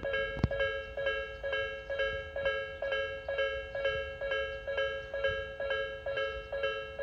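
Japanese railway level-crossing warning bell dinging rapidly and evenly, about two to three strokes a second, each ding a ringing pair of close pitches, signalling that a train is approaching. A single sharp knock about half a second in.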